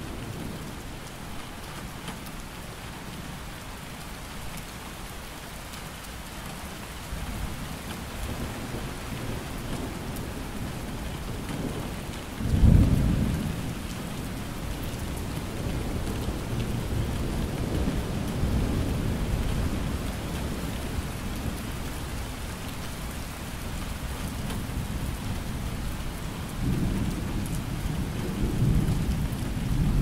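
Steady rain falling, with low thunder rumbles rolling in and out; the loudest peal comes suddenly about twelve seconds in, with softer rolls later and again near the end.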